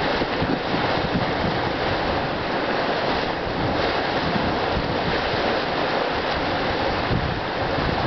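Churning Caldron hot spring boiling and gurgling steadily, with wind rumbling on the microphone.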